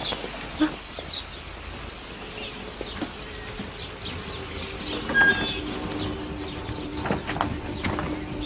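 Scattered short bird chirps over a steady outdoor background noise, with a few light knocks in the second half.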